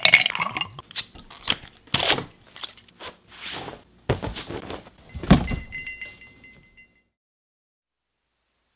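Clinks and knocks of a drinking glass and bottles being handled, with a louder thud about five seconds in and a brief ringing tone after it. The sound cuts off to silence about seven seconds in.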